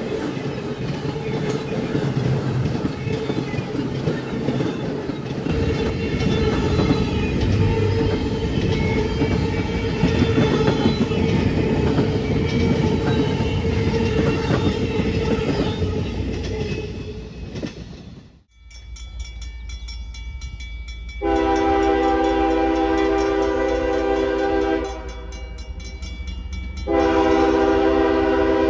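Freight train rolling past, a steady rumble of wheels on rail with clickety-clack. Then a diesel locomotive's air horn sounds one long blast of several tones at once, followed by a second blast near the end.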